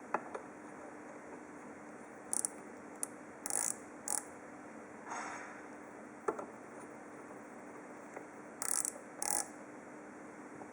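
Small metal parts being handled on a workbench: a few sharp clicks and clinks and several short scraping rustles, over a faint steady hum.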